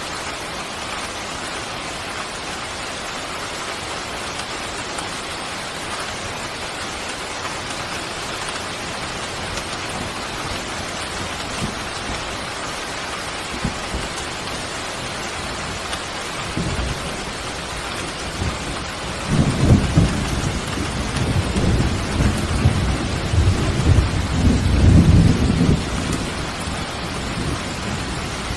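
Steady rain falling, with a low roll of thunder that builds a little past the middle, rumbles for several seconds and fades near the end.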